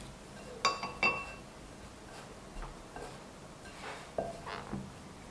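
Hands kneading crumbly oil-and-flour dough in a ceramic bowl, with two light ringing clinks against the bowl about a second in, then soft pressing and a few small knocks.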